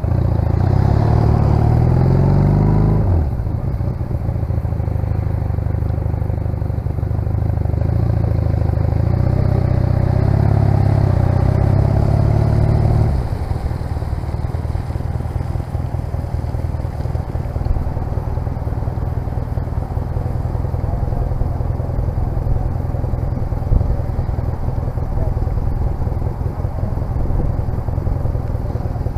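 1996 Honda CMX250C Rebel's 234 cc air-cooled parallel-twin engine: revs climb for about three seconds and drop, climb again a few seconds later, then from about halfway through settle to a steady idle as the bike stands still.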